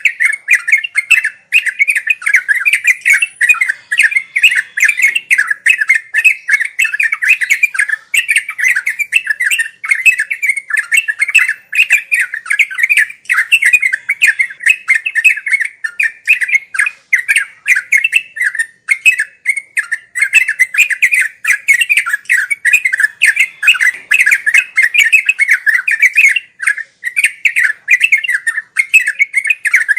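Yellow-vented bulbul (trucukan) singing a fast, unbroken chatter of bubbling notes, the continuous 'ngeropel' style that birdkeepers use as a tutor song.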